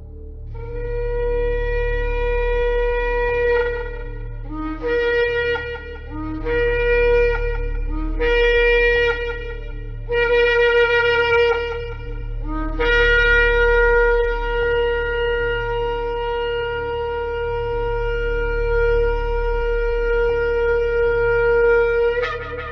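Shofar blowing: a long blast of about three seconds, then four shorter blasts that each start low and jump up to the main note, then a long held blast of about ten seconds that ends with a brief upward flick.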